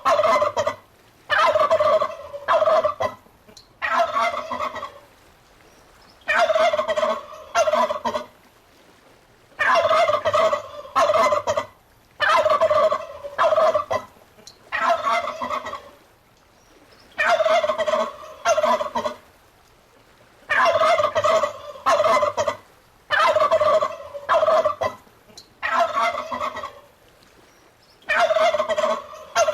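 Turkey gobbling over and over, each gobble a quick rattling call about a second long, sometimes two in close succession, with short pauses between.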